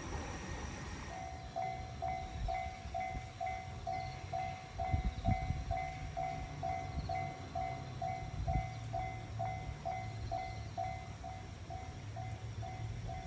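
Japanese railway level-crossing alarm ringing its electronic bell, evenly at about two strikes a second, starting about a second in: the crossing is warning of an approaching train. A low rumble runs underneath.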